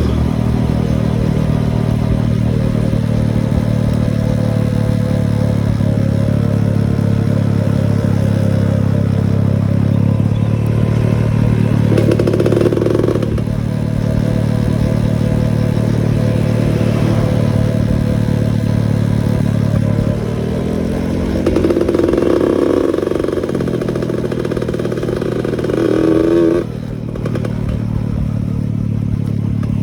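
Yamaha F1ZR two-stroke single-cylinder motorcycle engine running under way, with its revs shifting a few times, a brief rise near the end and then a sudden drop. The bike is set up in a 'ngorok' tune, a rough, snoring exhaust note.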